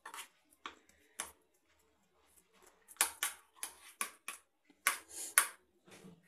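A steel spoon scraping and clinking against a metal tray as a thick barfi mixture is spread flat: a string of short scrapes and knocks, with a lull of about a second near the start.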